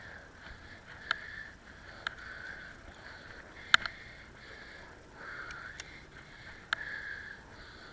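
Bicycle rolling over a rutted dirt track: a fluctuating hiss of tyres and air, broken by about six sharp, irregular knocks and rattles as the bike and its mounted camera jolt over bumps, the loudest about four seconds in.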